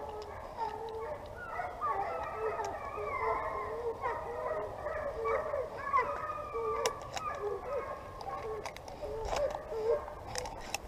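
A pack of hunting hounds baying and howling on a deer chase, many voices overlapping without a break. A few sharp clicks come in the second half.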